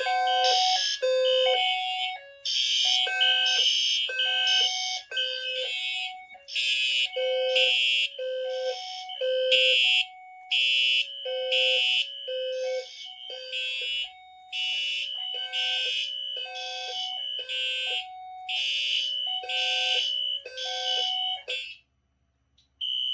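Fire alarm system in alarm after its heat detector was tripped: detector sounder bases give pulsed low tones alternating between two pitches, while Wheelock and Simplex horns blast in repeating groups out of step with them. The signals cut off suddenly near the end, and one short high beep follows.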